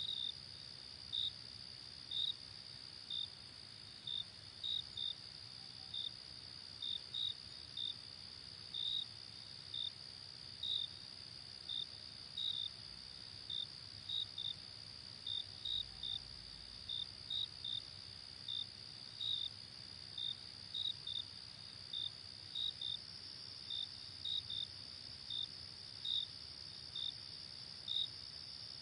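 Crickets chirping at night: a steady high trill from many insects, with one louder cricket's short separate chirps repeating irregularly, about one or two a second.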